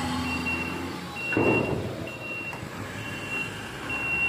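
Reversing alarm of a truck-mounted mobile crane beeping about once a second, one high tone per beep, over the low running of the crane's engine. A short rush of noise comes about a second and a half in.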